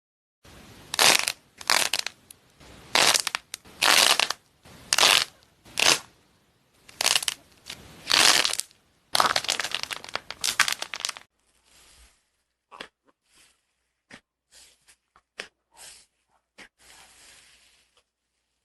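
Slime being squeezed and worked by hand: about a dozen loud squishes, roughly one a second, then softer scattered clicks and pops for the last several seconds.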